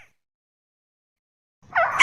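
Recorded tikusan bird call played as a trapping lure: a gap of silence, then a loud call beginning near the end, a short rising note followed by arching, falling whistled notes.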